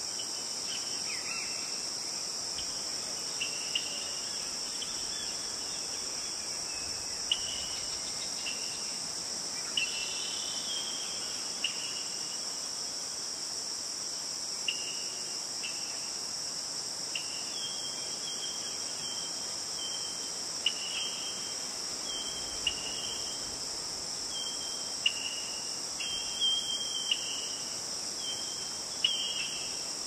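A steady, high-pitched drone of insects, with short, bright bird chirps repeating on and off over it, coming more often in the second half.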